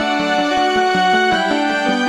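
Background music: held melodic notes over a steady, quick beat.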